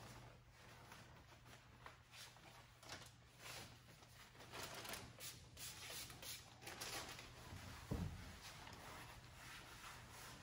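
Faint rustling and rubbing of paper towels wiping down glass and a cabinet top, in a string of short strokes, with a single low thump about eight seconds in.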